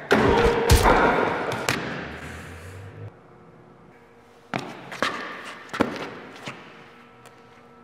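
Fight-scene impact sounds: hard hits and a body slamming onto a concrete floor at the start, with a deep thud and a noisy tail that dies away over a couple of seconds. A few more sharp thuds follow about halfway through.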